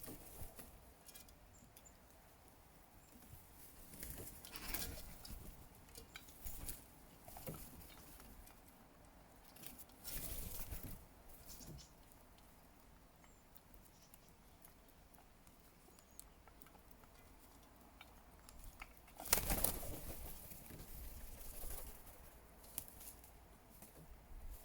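Crows at a feeding bowl: scattered light pecking and tapping, with a few brief bursts of wing flapping, the loudest near the end.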